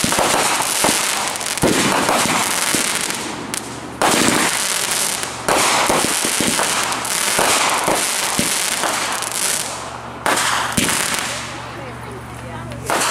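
Aerial fireworks bursting overhead: a dense, continuous crackle with sudden loud bursts about four, five and a half and ten seconds in, dying down near the end.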